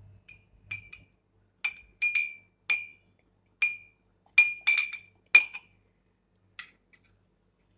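A spoon clinking sharply against dishware about a dozen times at an uneven pace, each strike ringing briefly, as soaked sabja (basil) seeds are spooned out for falooda.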